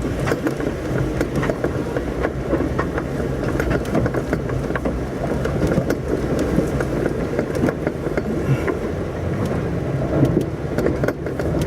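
Jeep Wrangler engine running steadily at low speed while crawling over a rough, bumpy rock trail, with tyres crunching on stones and many scattered small knocks and rattles.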